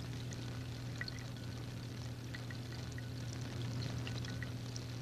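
Gas bubbles fizzing with small scattered ticks as they rise off the electrodes of a water-electrolysis apparatus, where hydrogen and oxygen are being split from water. A steady low hum runs beneath.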